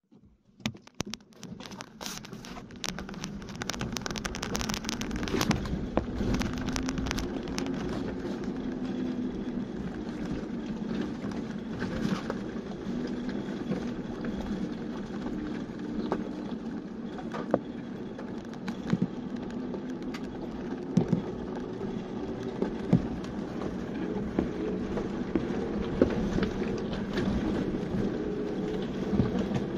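Off-road vehicle crawling down a loose gravel and stone track: the engine runs steadily at low revs while the tyres crunch over loose stones, with frequent sharp knocks and clicks as stones strike and the vehicle jolts.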